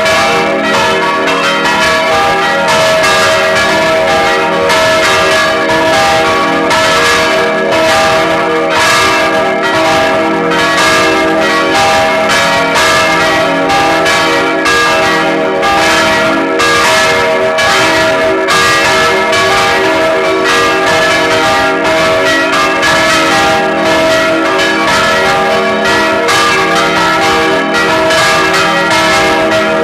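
Four church bells ringing together in a full peal. Three are larger baroque bells cast in 1788 and one is a smaller bell from 1988. Their strikes overlap densely over a continuous ring of sustained tones.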